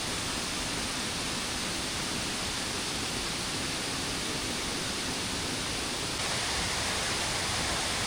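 Steady rushing of waterfall water, an even hiss that gets a little louder about six seconds in.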